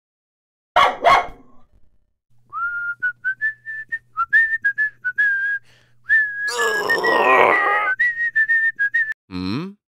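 A whistled tune of short, hopping notes over a low steady hum. A loud, noisy burst breaks in partway through, and a sharp falling glide comes near the end.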